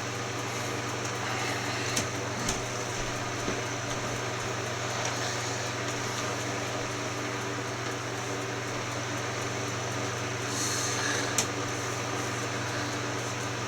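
Steady low mechanical hum of room noise, like a fan or air conditioner running, with a few light clicks or knocks.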